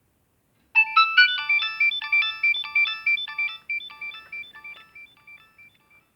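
A Nokia 2610 mobile phone playing a polyphonic ringtone through its small speaker: a quick synthesized melody of short notes that starts about a second in and fades steadily away before the end.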